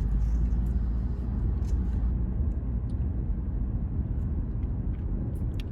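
Steady low rumble of a running car heard from inside the cabin, with a few faint clicks and rustles.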